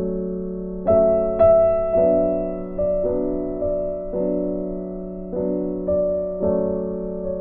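Background piano music: notes struck about twice a second, each ringing and fading before the next.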